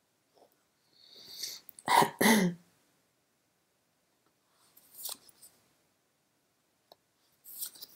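A woman's non-speech vocal sounds as she gets emotional: a sniffling intake of breath, then two short loud catches of breath about two seconds in, and fainter sniffs later.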